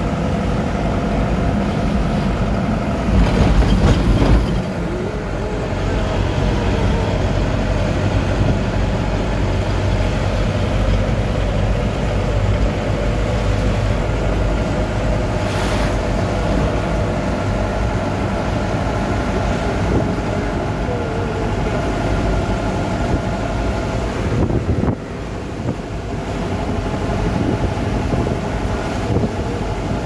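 Engine and road noise inside a moving bus: a steady engine drone over tyre and wind rumble, louder for about a second and a half a few seconds in, with a brief sharp knock about halfway through.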